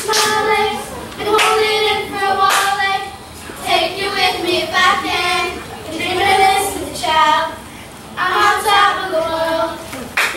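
Children's voices singing together without accompaniment, in short phrases separated by brief pauses, with a few sharp claps.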